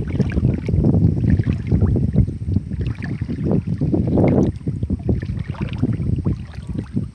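Wind buffeting the microphone in an uneven low rumble, with crackling rustles of dry grass and leaves throughout.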